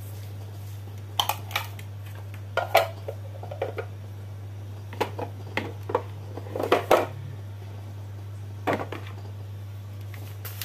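Plastic scoop and plastic container clicking and knocking against each other and the bowl as seasoning is scooped and sprinkled, a dozen or so sharp taps in irregular clusters. A steady low electrical hum runs underneath.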